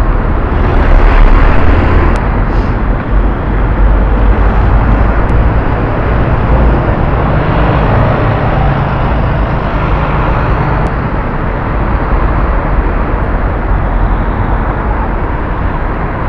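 Busy city street traffic, cars and buses running along the road, a loud steady noise with a low rumble, picked up by a small camera microphone.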